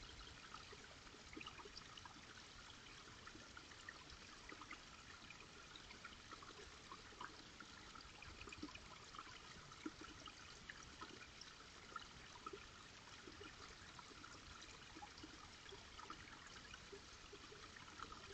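Faint, steady trickle of running water, dotted with small scattered drips and gurgles.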